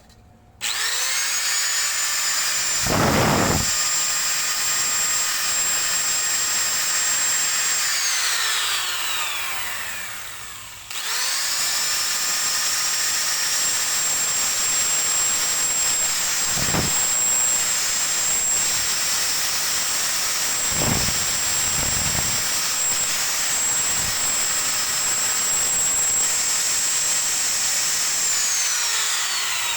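Old Maktec hand angle grinder switched on twice, each time running up to a steady high whine and, when switched off, coasting down with a falling whine. A few dull knocks come through while it runs. It is a test run after the bearings were replaced, with the grinder running normally again instead of growling.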